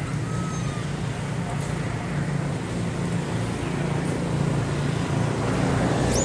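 A steady low rumble, slowly growing louder, with a short faint whistle about half a second in.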